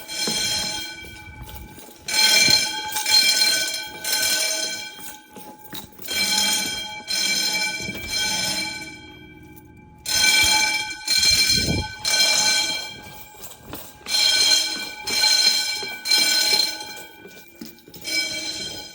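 Wheelock 10-inch fire alarm bells ringing in repeated short groups of strokes, with a brief pause between groups, about every four seconds: the temporal-3 evacuation signal of a fire alarm system in alarm.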